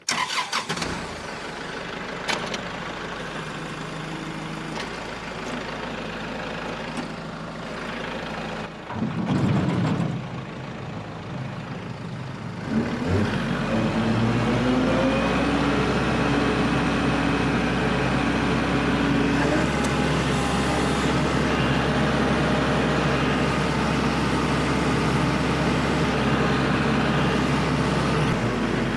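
Kubota L4701 tractor's diesel engine running, then revved up about 13 s in and held at a higher, louder steady speed.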